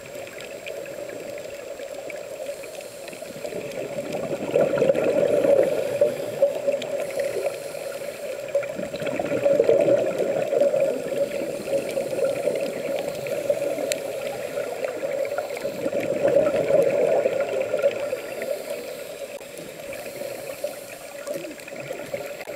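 Underwater sound of a scuba diver's regulator breathing: exhaled bubbles rushing past the camera housing, swelling and fading three times, several seconds apart, with each breath.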